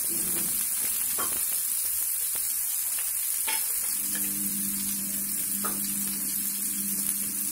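Onions, green chillies and dals sizzling in hot oil in a nonstick frying pan, with a wooden spatula stirring through them at first and a few sharp clicks along the way. A low steady hum comes in about four seconds in.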